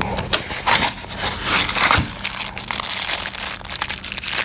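Small clear plastic accessory bag crinkling and crackling as it is handled in the fingers, in quick irregular bursts.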